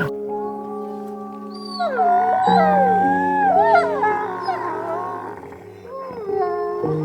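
An animal howling in long, wavering pitch glides over music with steady held notes.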